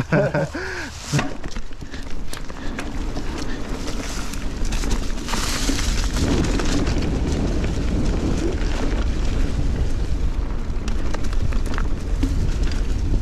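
Wind buffeting the camera microphone over the rumble of a Giant Trance 29 mountain bike's knobby tyres rolling on dirt singletrack, with scattered clicks and rattles from the bike. A louder hiss swells about five seconds in.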